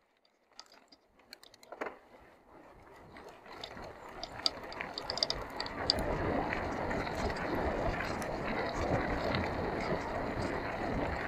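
Mountain bike descending a dirt track: scattered clicks and rattle from the bike at first, then steady tyre rumble on loose dirt with wind on the microphone, growing louder from about six seconds in.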